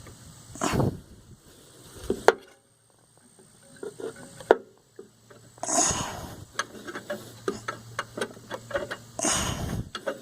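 Hand work on a lawnmower's fuel line and clamp: scattered clicks and knocks of tools and parts being handled, two of them sharp and loud, with a few short bursts of rustling.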